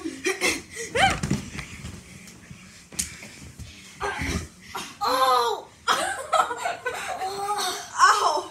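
Boys laughing and giving high voice cries while wrestling, with a sharp slap-like impact about three seconds in.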